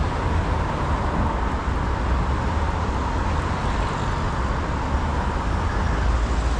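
Steady rush-hour traffic on a busy multi-lane city avenue: a continuous rumble of passing cars.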